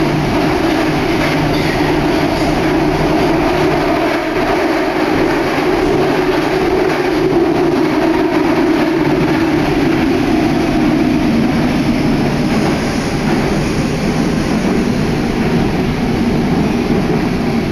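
Nagoya Municipal Subway Meijo Line train running between stations, heard from inside the car: a steady, loud rumble of wheels and running gear in the tunnel.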